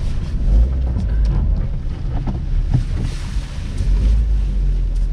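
Mitsubishi Lancer X engine running with a low, steady rumble, mixed with wind noise on the microphone and a hiss that swells about three seconds in.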